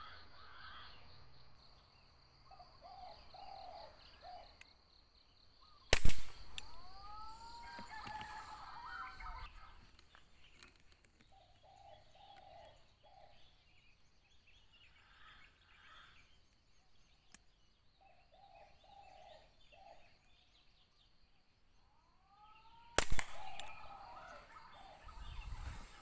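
Two air-rifle shots, about 17 seconds apart, each a sharp crack. Between them, short bird calls come and go, and a steady high whine runs through the first third.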